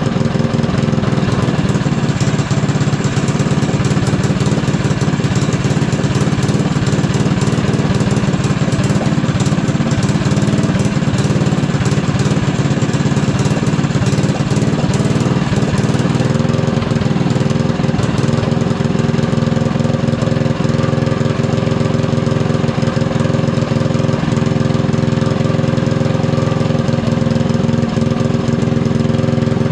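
Small gasoline engine on a drift kart, running steadily.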